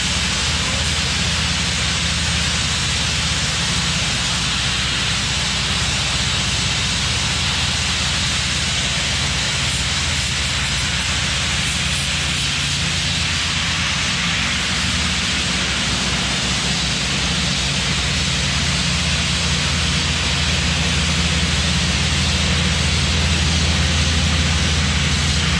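Tennant T20 ride-on floor scrubber running steadily, its engine humming under the hiss of its vacuum, sucking up the dirt, blasting media and water left on the concrete. It gets a little louder near the end as it passes close by.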